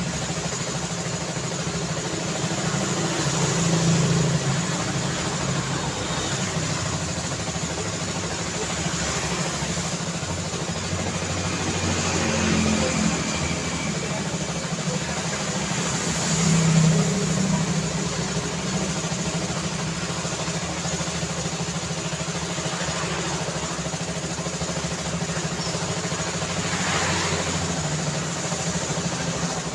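City street traffic ambience: a steady hum of engines and tyres, with a few vehicles passing one at a time, the loudest about halfway through.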